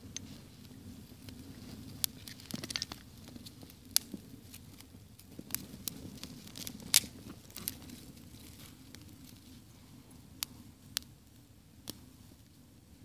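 Small fire of dry grass and twigs crackling, with about a dozen sharp, irregular pops and snaps over a steady low rushing noise. The loudest pop comes about seven seconds in.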